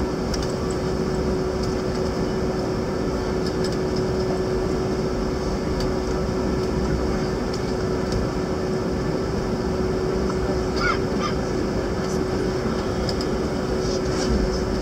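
Airbus A321neo turbofan engine at taxi idle, heard from inside the cabin: a steady rushing hum with one constant droning tone. A few faint short chirps come through about eleven seconds in.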